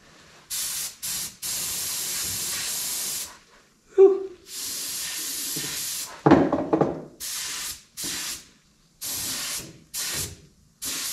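Small cup-fed compressed-air spray gun spraying primer in a series of trigger pulls: bursts of hissing, from quick taps to runs of about two seconds, with gaps between them. Two short louder noises fall between the bursts, about four and six seconds in.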